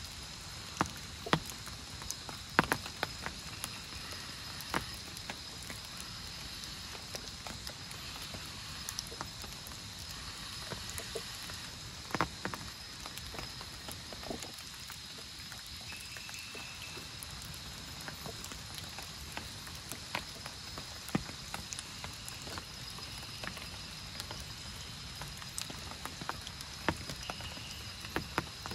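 Rain falling steadily, with individual heavy drops landing as sharp, irregular ticks over the hiss.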